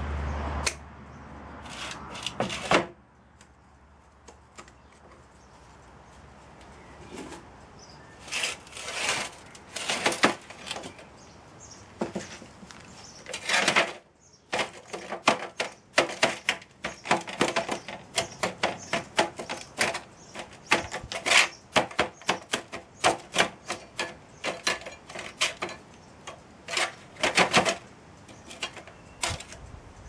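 Sharp clicks and knocks of pliers and a fresh brass casting being knocked free of the moulding sand against a metal tray: a few knocks near the start, then after a lull a long, rapid, irregular run of taps.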